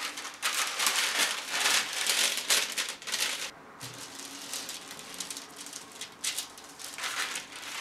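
A sheet of paper rustles and crinkles for about three seconds as it is handled and laid over the shirt. Then comes the quieter scraping of a household iron sliding back and forth over the paper, with a few short rustles near the end.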